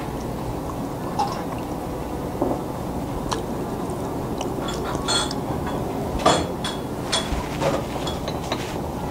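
Steady restaurant background noise with a scatter of short clinks and knocks of dishes and glassware, the loudest about five and six seconds in.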